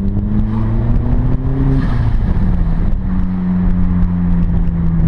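Turbocharged Peugeot 206 1.6 16-valve four-cylinder engine climbing in revs, then about two seconds in the throttle is lifted and the HKS SSQV II blow-off valve, set closed, releases with a hissy flutter as the engine note drops. The engine then runs on at a lower, steady note.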